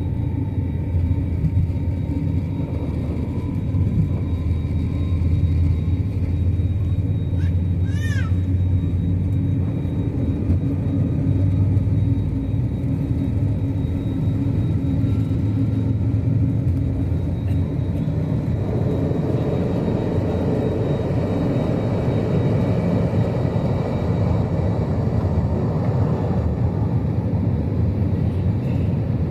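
Steady low rumble of a jet airliner's engines and rushing air during the takeoff climb, getting a little brighter from about nineteen seconds in, with a brief high tone about eight seconds in.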